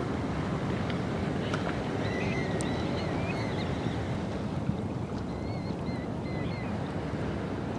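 Wind rumbling on the microphone, a steady low noise. Between about two and seven seconds in, a small bird chirps faintly several times.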